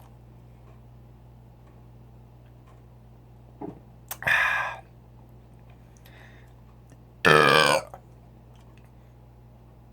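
A man burping twice, loud, each lasting about half a second with a wavering pitch: once about four seconds in and again, louder, about seven seconds in, burps brought up by drinking malt liquor.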